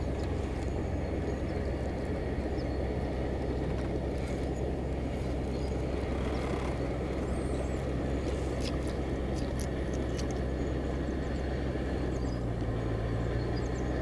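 Jon boat's motor running steadily over water and wind noise, its pitch shifting slightly about twelve seconds in.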